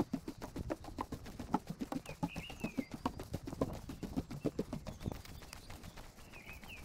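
Footsteps on a walking path, a run of uneven steps. A bird gives a short chirping call about two seconds in and again near the end.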